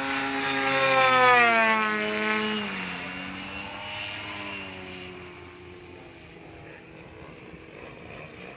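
ZDZ 180 gasoline engine with Pro-RC canister mufflers, on a large-scale RC airplane, running hard in a fly-by. It is loudest about a second in, drops in pitch as the plane passes, then fades as it flies away.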